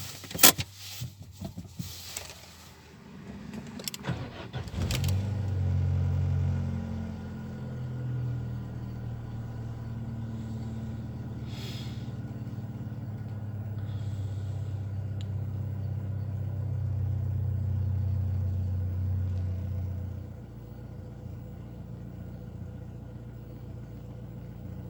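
A few sharp clicks, then a Chery Amulet's engine is cranked and starts about five seconds in, after its ECU has been reset by disconnecting the battery. It idles fast for about fifteen seconds, then drops to a lower, steadier idle near the end, around 800 rpm; the car has been logging P0507, idle speed too high.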